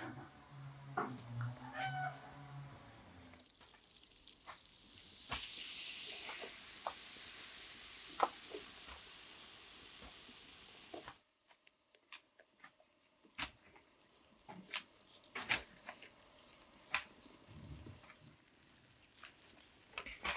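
A cat meowing a couple of times near the start. Then a soft steady hiss for several seconds, followed by scattered light taps and scrapes of a plastic spatula working a mixture in a pot.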